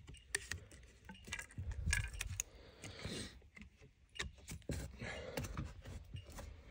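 Light scattered clicks and rustles of a white plastic push-fit plumbing fitting being handled and pushed onto the end of a copper pipe by hand.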